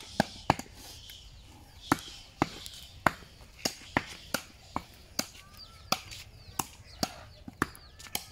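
Meat being chopped on a wooden stump block with a heavy blade: a run of sharp chops, about two a second, slightly uneven in pace.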